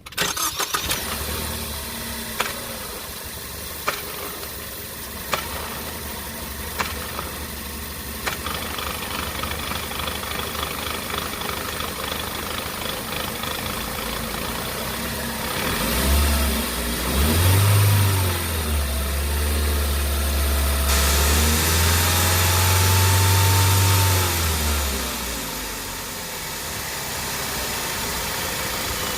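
Car engine starting and idling, with a sharp thump about every second and a half for the first several seconds, which the owner puts down to the transmission. The engine is then revved twice, rising and falling, and drops back to idle.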